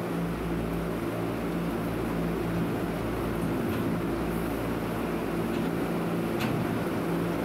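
Steady mechanical hum and low rumble of barn machinery, with a few faint clicks in the second half.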